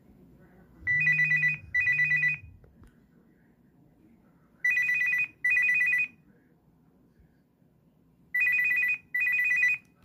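Nokia 6016i mobile phone ringing for an incoming call with a monophonic ringtone: a trilling two-tone ring sounded in pairs of short rings, three pairs in all, a little under four seconds apart.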